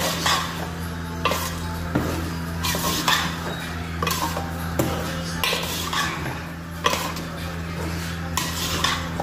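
A metal spoon repeatedly scraping and knocking against the inside of an aluminium pot as boiled potato cubes are stirred into a thick tomato curry, about one or two knocks a second over a steady low hum.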